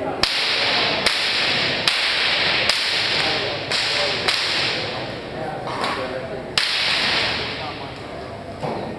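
Thrown weapons striking a wooden target: several sharp hits at uneven intervals over a steady hiss.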